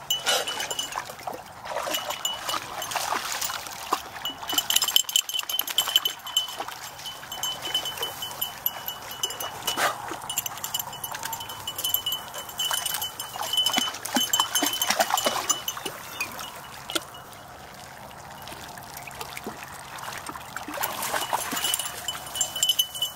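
Dogs splashing in shallow water and rustling through reeds, with a light metallic jingling like small bells or collar tags. The activity eases off for a few seconds past the middle.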